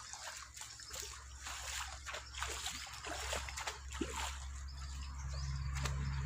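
Irregular splashing and sloshing of shallow pond water as fish are caught by hand, over a steady low hum that grows louder near the end.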